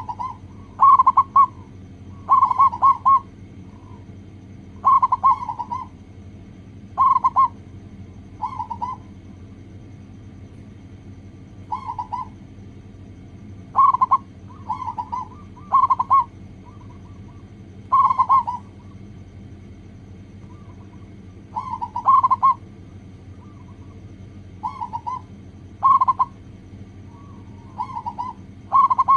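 Zebra dove (local perkutut) cooing: short phrases of a few quick, rolling coos, repeated every one to two seconds over a steady low hum. It is a lure recording played to get other perkutut to sing.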